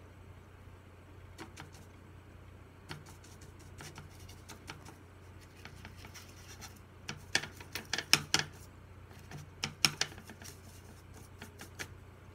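A big paintbrush scrubbing and tapping in the pans of a watercolour palette while mixing paint: soft scratching with a run of sharp clicks in the second half.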